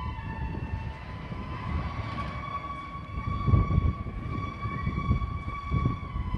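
Wind buffeting the microphone in gusts, the loudest about three and a half seconds in, over a steady high-pitched tone with overtones that is held throughout.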